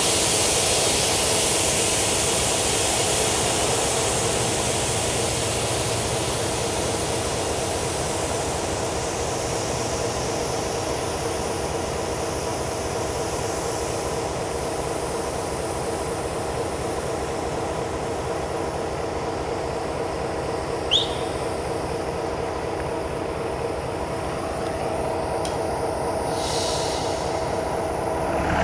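Slovenian Railways class 664 diesel-electric locomotive idling at a standstill, a steady engine hum, with a hiss that dies away over the first part. A single short rising squeak comes about three-quarters of the way through.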